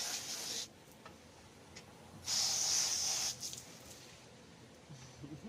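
Sandpaper rubbing over a painted car side mirror in two long hissing strokes, one at the start and one about two seconds in, each lasting about a second.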